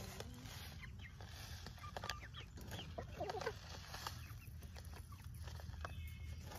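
Hens clucking softly close by, a few short calls, while chicken feed trickles and clicks down a tube into their trough.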